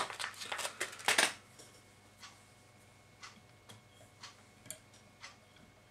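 Handling noise: a burst of rustling and clicking in the first second or so, then a few faint, scattered ticks as a long-shank 6/0 hook is fitted into the jaws of a rotary fly-tying vise.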